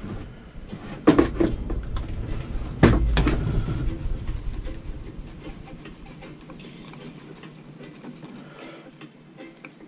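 Two sharp knocks, about a second and three seconds in, each followed by rumbling handling noise, then faint rustling and small clicks: hands and tools working on a strimmer's air filter housing.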